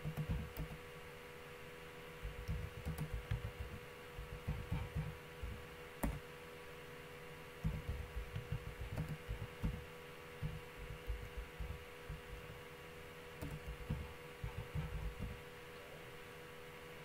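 Computer keyboard typing in several short bursts, the keystrokes coming through as dull thumps, with one sharper click about six seconds in. A steady electrical hum runs underneath.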